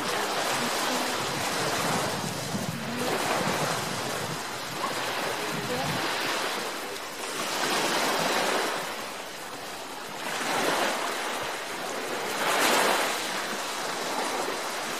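Small waves washing onto a sandy beach, the surf noise swelling and fading every two to three seconds.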